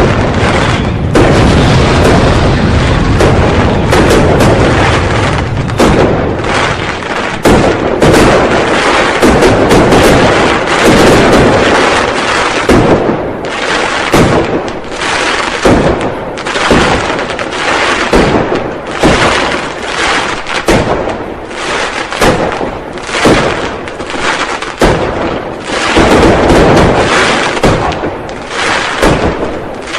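New Year firecrackers and fireworks going off in a dense barrage of overlapping bangs and booms. It is an almost continuous din at first, then about halfway through it breaks up into more separate loud bangs.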